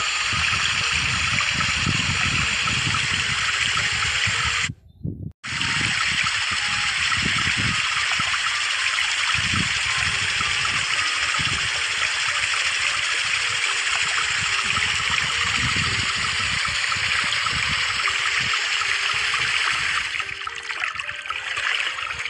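A jet of water from a small model water pump's pipe pouring into a shallow pond, a steady splashing trickle. It breaks off for a moment about five seconds in and is quieter near the end.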